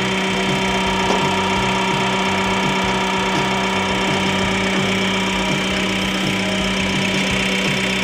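Road roller's Isuzu 4LB1 diesel engine idling steadily and running well, its no-start fault from a corroded fuse box now cured.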